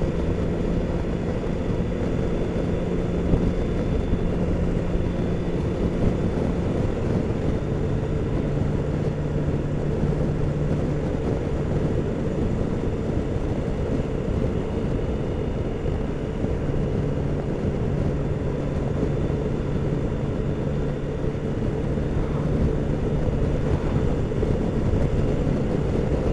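BMW K1600's inline-six engine running steadily on the move, under heavy wind and road noise. The engine note drops slightly about seven seconds in and holds there.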